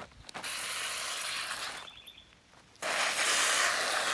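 Garden hose spray nozzle squirting a hissing jet of water onto a plastic sheet, in two bursts: a shorter one starting about half a second in, then a longer, louder one from about three seconds in.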